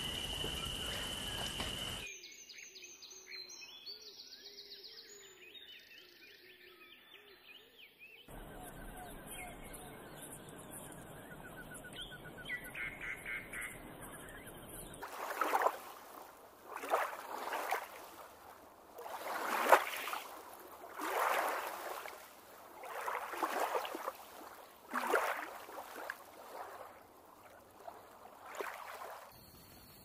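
Bird calls in abruptly changing sections. A steady high insect-like trill stops about two seconds in. Faint chirps and twitters follow, then from about fifteen seconds in a loud call is repeated roughly every one and a half seconds.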